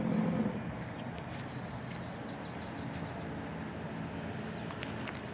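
A small bird gives a quick run of about five high chirps and a short trailing note, over a steady outdoor background rush.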